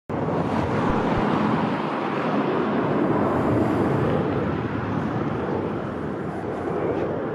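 Jet noise from an F-22 Raptor's twin Pratt & Whitney F119 turbofans on landing approach: a steady, dense rush that eases a little in the second half.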